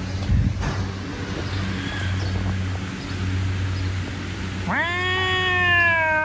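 Grey-and-white domestic cat giving one long, drawn-out meow near the end, rising quickly and then slowly falling in pitch. A steady low hum runs underneath.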